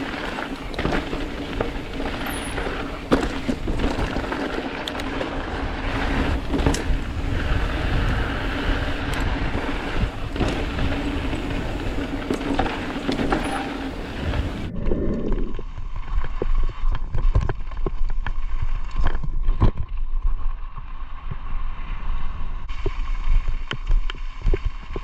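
Mountain bike descending a rocky trail: wind rushing over the microphone, with tyres crunching and the bike rattling and knocking over rocks. The sound changes abruptly about two-thirds of the way through, after which the knocks stand out more.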